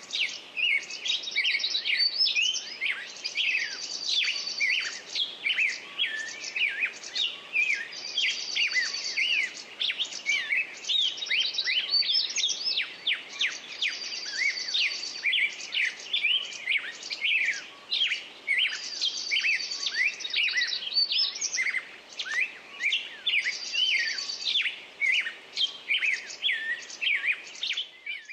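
Birdsong ringtone played on a Sky IM-U150L phone: a dense stream of quick bird chirps and whistles, with a brief high trill coming back every few seconds.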